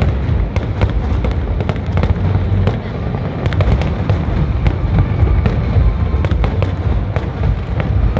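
Fireworks display: aerial shells bursting overhead, with many quick sharp crackles and pops over a constant deep rumble of booms.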